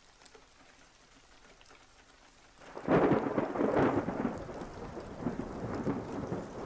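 Near silence, then about three seconds in a thunderstorm breaks in: a sudden roll of thunder, loudest for about a second, followed by steady rain.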